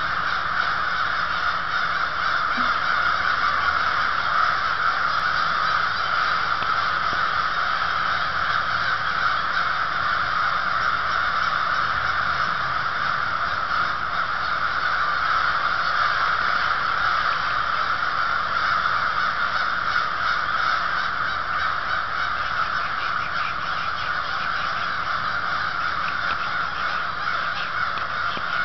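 A large flock of crows all cawing at once: a dense, unbroken chorus of overlapping caws that keeps up at an even level.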